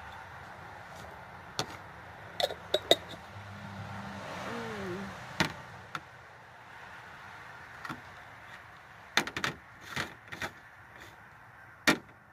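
Scattered clicks and knocks of a plastic fork against a glass jar of pepper rings and the jar being handled and set down, over a steady low hum.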